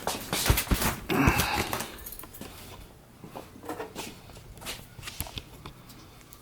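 A cardboard shipping box being opened and its packaging handled: irregular knocks, scrapes and rustles, busiest in the first second or so and then fainter, scattered ticks.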